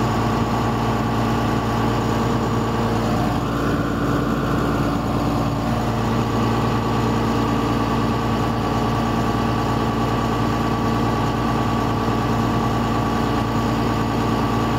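Tractor engine running steadily while it powers a grain cart's unloading auger, a constant drone with a thin high whine over it, heard from inside the cab.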